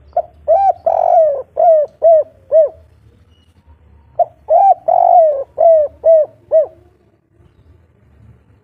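Spotted dove cooing twice, each phrase a short note, a second note, one longer drawn-out coo and then three short 'kuk' notes, the three-note ending Indonesian keepers call kuk 3. The two phrases are about four seconds apart, each note rising and falling in pitch.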